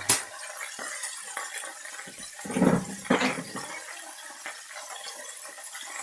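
Chicken pieces and onion frying in hot peanut oil in a pan, a steady sizzle. A louder surge lasting about a second comes about two and a half seconds in.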